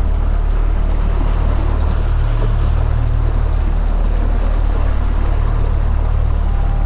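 Mercury outboard motor running steadily at low speed, a constant low hum, with the hiss of water churning in the wake.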